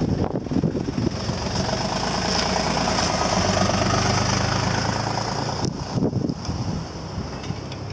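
A motor vehicle's engine running nearby, growing louder for a few seconds and then fading away, over wind noise on the microphone.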